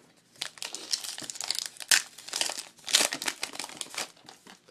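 Foil wrapper of a trading-card pack being torn open and crinkled by hand, a run of crackling rustles with sharper tears about two and three seconds in.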